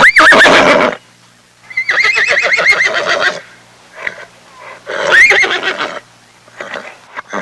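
A horse whinnying three times, each a loud, quavering call. The second call is the longest, and shorter, quieter sounds come between the calls and near the end.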